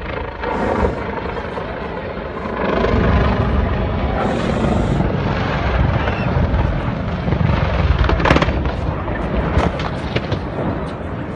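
Helicopter flying low, a loud rumbling rotor and engine noise that swells about two and a half seconds in, with wind buffeting the microphone. Several sharp cracks come from about eight seconds in.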